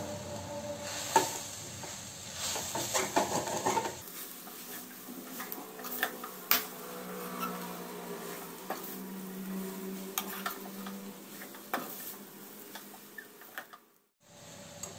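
A metal spatula scrapes and knocks irregularly against a kadhai, stirring a thick, moist coriander masala, with a faint sizzle from the pan as its water cooks off.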